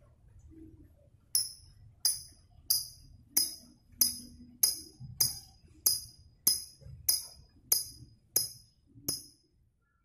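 Lovebird giving a run of thirteen sharp, high chirps at an even pace of about three every two seconds.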